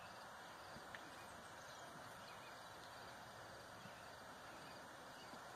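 Near silence: faint, steady outdoor background noise, with one soft click about a second in.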